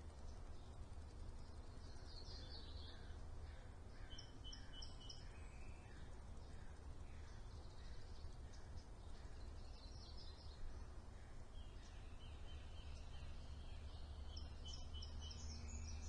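Birds calling outdoors: several bursts of quick, high chirps a few seconds apart, with some lower falling notes in between. A faint steady low hum runs underneath.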